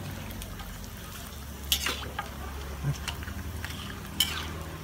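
Rempeyek (peanut crackers) frying in a wok of hot oil, a steady sizzle, with a metal spatula scraping and knocking against the wok a few times, sharpest about a second and a half in and near the end.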